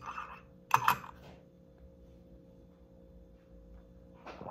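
A few sharp clicks and clinks from handling a coffee cup and coffee maker, near the start and again near the end, over a faint steady hum.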